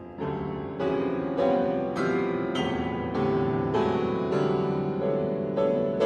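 Grand piano playing a steady run of struck chords, a little under two a second, growing louder after the first second.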